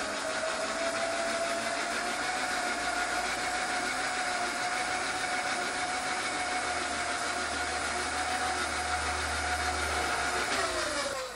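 Milling machine's electric table power feed running, a steady motor whine that settles at speed in the first couple of seconds and winds down near the end as the feed is switched off.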